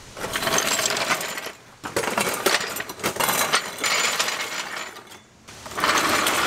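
Small hard casters of a low dolly loaded with a car's front subframe, brakes and suspension, rolling over gritty asphalt with a rattling, grinding noise. It comes in three stretches with short pauses between them.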